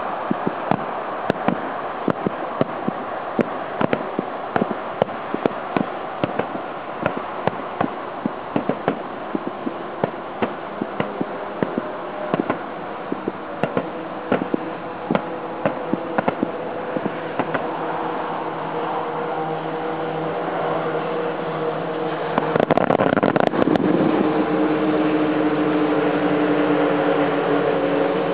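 Aerial firework shells bursting in rapid succession during a finale barrage, heard at a distance: several sharp bangs a second over a continuous rumble. The bangs thin out after about seventeen seconds as a steady hum of several pitches comes in, and a dense, loud cluster of cracks comes about twenty-three seconds in.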